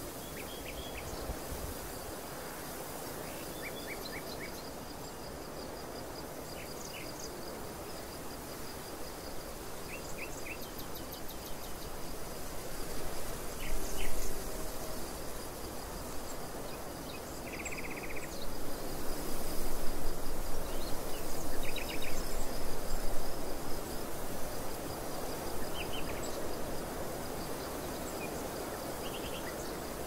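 Wind blowing across an open barley field and buffeting the microphone, gusting louder in the middle and second half. Short bursts of quick, high-pitched chirps come at intervals over a faint steady high trill.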